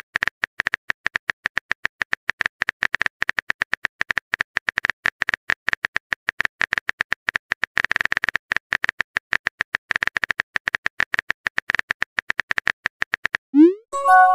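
Rapid, uneven clicking of a keyboard-typing sound effect, several clicks a second. Near the end the clicks stop, and a short rising swoop leads into a bright chime.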